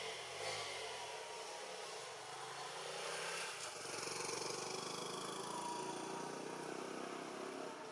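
A motor engine running, its low hum growing stronger about halfway through, over steady background noise.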